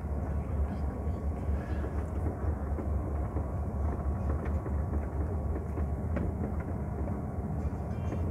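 Steady low engine and road drone heard inside a heavy truck's cab as the lorry rolls slowly forward, with a few faint clicks.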